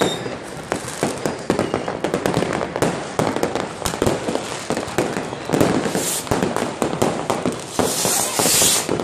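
Many fireworks and firecrackers going off at once, a dense, unbroken run of bangs and crackles. A high hiss rises over them briefly about six seconds in and again for about a second near the end.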